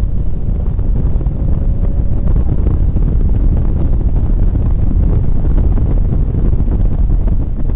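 Honda NSX's V6 engine running at speed, heard from inside the cabin as a loud, steady low rumble mixed with road and wind noise; a faint rising engine note shows in the first couple of seconds.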